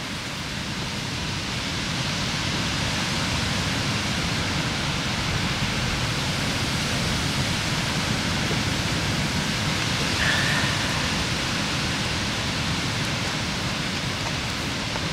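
Strong wind rushing across the microphone: a loud, steady hiss with a low rumble underneath, growing slightly louder about two seconds in. A brief faint high note sounds about ten seconds in.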